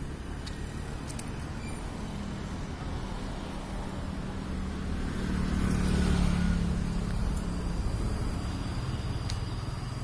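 A motor vehicle passing: a low engine hum and rumble that grows louder to a peak about six seconds in, then fades away.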